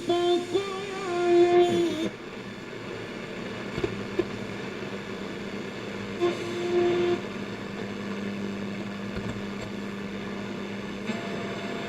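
Shortwave static hiss from a Bush VHF64 valve radio's loudspeaker while it is tuned between stations. A wavering whistle sounds in the first two seconds and a shorter one about six seconds in, and a steady low tone comes in at about four seconds.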